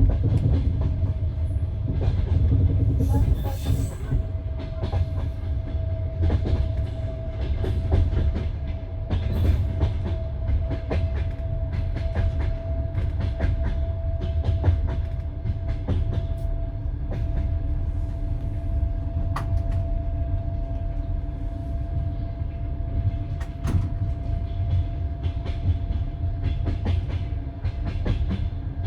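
Passenger train carriage rolling along the track: a steady low rumble with irregular wheel clicks over rail joints, and a steady whine at one pitch that sets in about four seconds in.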